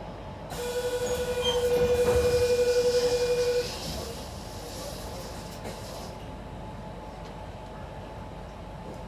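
Train noise that starts suddenly as a loud rush, with a steady single tone held for about three seconds before it cuts off, then the rush dies down to a steady hum.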